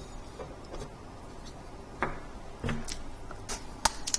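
A few light, sharp clicks and taps from handling a hard drive and the SATA cable glued to it, mostly in the second half.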